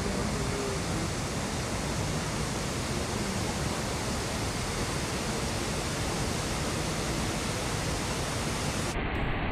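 Steady, dense rushing roar of a large waterfall in heavy monsoon flow. Near the end the highest hiss drops away abruptly.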